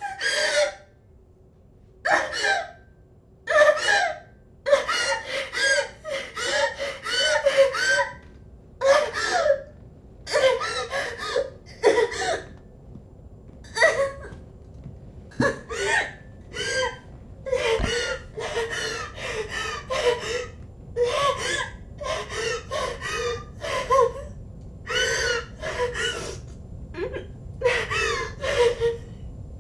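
A woman sobbing hard and gasping for breath in short, ragged cries. There are a few separate sobs at first, then from about five seconds in they come almost without a break.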